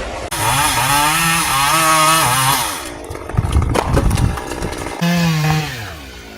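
Chainsaw running at high revs in two bursts, its pitch wavering a little. Between the bursts come several sharp cracks and knocks.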